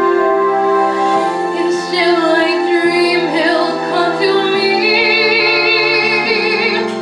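A woman singing long held notes with vibrato over a sustained accompaniment whose chords change every second or two.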